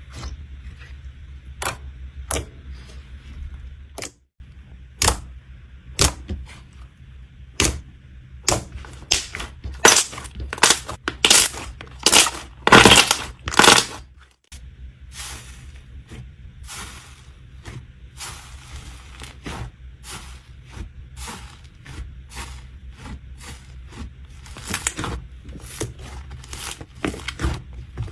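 Slime being squeezed and poked by hand, making irregular sticky clicks and pops, loudest and most frequent in a burst near the middle, over a low steady hum.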